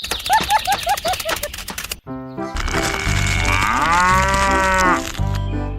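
A quick run of short rising squeaky calls with clicking, then, after a brief gap, one long drawn-out call that rises and then falls in pitch over a low steady hum.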